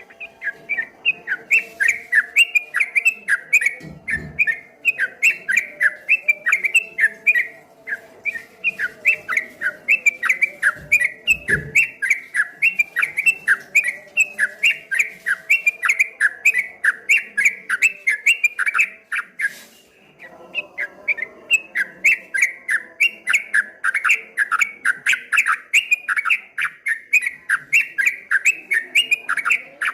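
Yellow-vented bulbul (trucukan) singing a long rolling 'ropel' run of quick repeated chirping notes, about three to four a second, with two short breaks.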